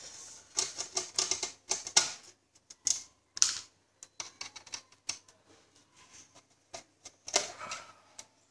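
Screwdriver working screws out of a computer power supply's sheet-metal case: irregular clicks and short scrapes of the bit against the screw heads and metal.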